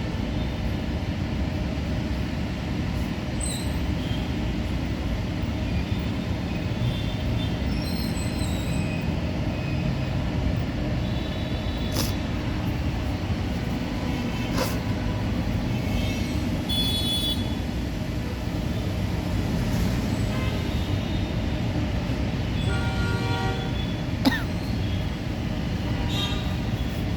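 Steady low rumbling background noise with a few faint clicks, and a faint held tone about two-thirds of the way through.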